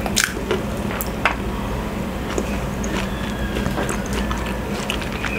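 Close-miked chewing of food, with scattered sharp crunchy clicks, over a steady low hum.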